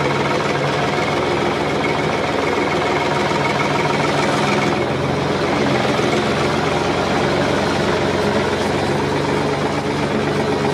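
Large farm tractor's diesel engine running steadily under load, its tone changing about four and a half seconds in.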